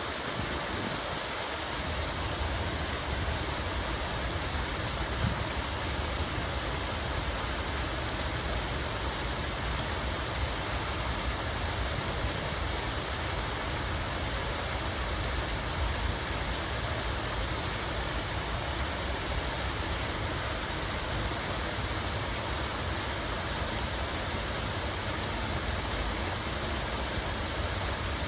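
Running water in a steady, even rush.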